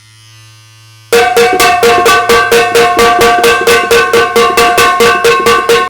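A piece of metal being struck rapidly and repeatedly with a wooden spoon, about five clanging, ringing hits a second, starting about a second in and stopping abruptly near the end.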